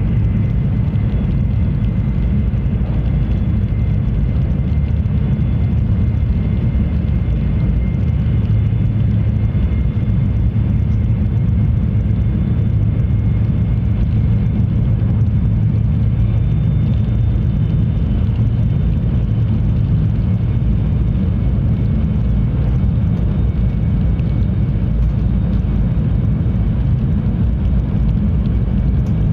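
Tohoku Shinkansen train running at speed: a steady low rumble with a faint, steady high whine over it.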